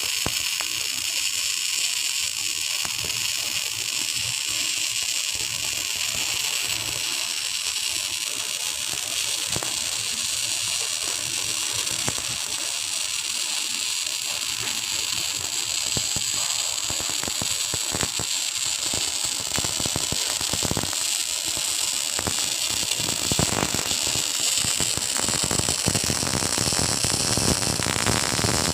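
Electric arc welding: the arc crackles and sizzles steadily, with thick clusters of sharp pops.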